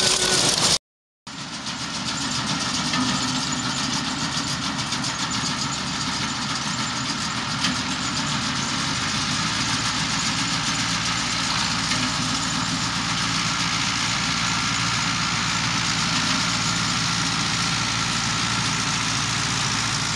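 Tractor engines running steadily at a distance over a constant hiss. The sound drops out for a moment about a second in, then carries on unchanged.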